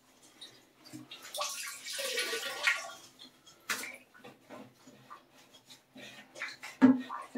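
Leftover water being sopped out of a drained toilet with a rag: water splashes and trickles, loudest about two seconds in, among scattered light knocks against the porcelain.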